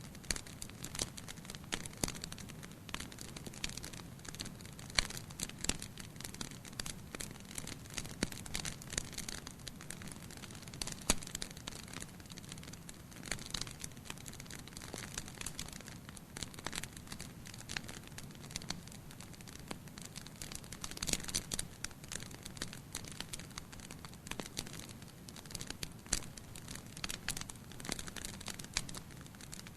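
Wood fire crackling: irregular sharp pops and snaps, some louder than others, over a steady low rumble of burning.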